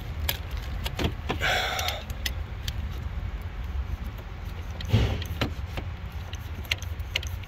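Pliers clicking and scraping on a metal fuel line and rubber hose as a stuck hose is twisted and pulled off, with scattered small clicks and knocks, a louder knock about five seconds in, over a steady low hum.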